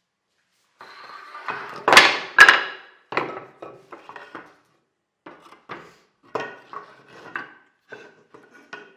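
Wooden parts knocking and clattering as they are handled: two sharp knocks about two seconds in, then a run of lighter clicks and taps.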